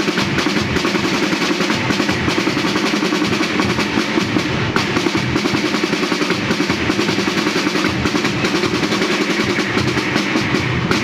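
Marching drum band playing: snare drums and bass drums together in a loud, steady, fast rhythm with dense rolls.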